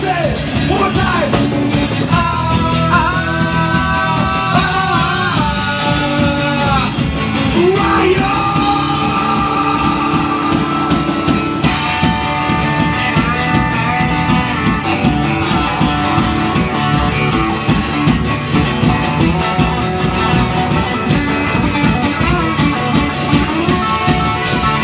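Live folk-rock band playing loudly and steadily: electric and acoustic guitars, electric bass, drum kit and keyboard together.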